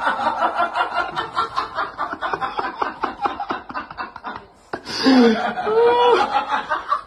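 Someone laughing in quick, breathy pulses, then from about five seconds in a few drawn-out calls that rise and fall in pitch.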